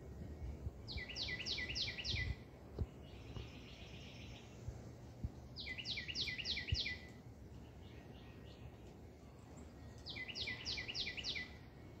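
A songbird singing three phrases about four seconds apart. Each phrase is a quick run of about five repeated clear notes, and a short buzzy trill sounds between the first two.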